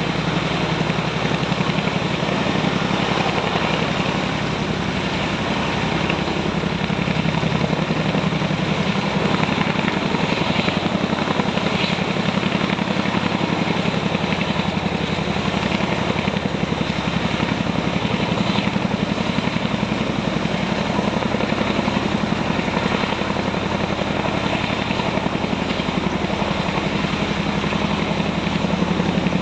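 Army helicopter running steadily, loud and unbroken, with a fast, even rotor chop over a strong low hum.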